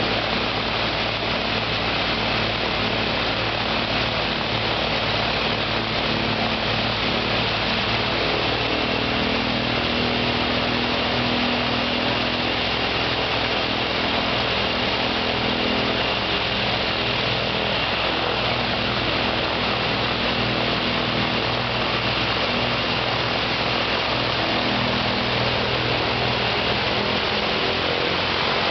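Ilyushin Il-14T's ASh-82T radial piston engine running steadily on the ground, with a thin high whine over its low drone.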